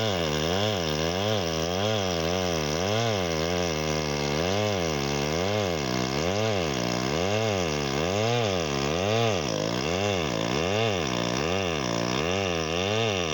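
Two-stroke chainsaw running, its engine pitch rising and falling in a steady rhythm, about one and a half swings a second at first and quickening to about two a second in the second half.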